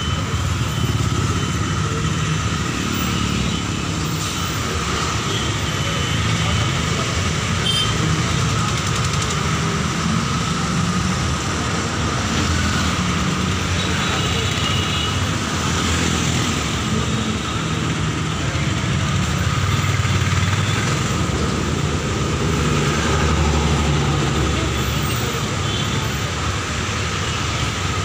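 Steady road traffic noise from a moving vehicle, with engines rumbling and passing cars and motorcycles, heard continuously at a fairly even level.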